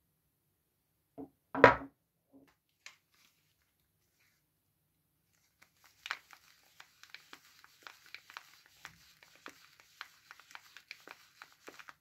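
A bar of soap knocks once, loud and brief, about a second and a half in. From about halfway, a bar of soap's paper wrapper crinkles and crackles in the fingers as it is handled.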